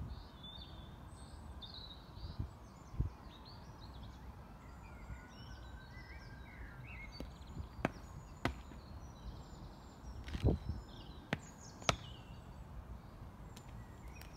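Marching boots striking tarmac: about five sharp, separate heel strikes in the second half, over birds chirping.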